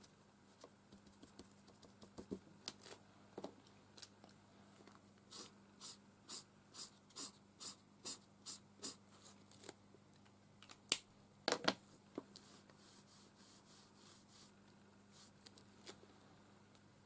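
Metallic marker nib working on card: a run of short strokes about two a second, followed by a few sharper clicks. A faint steady hum runs beneath.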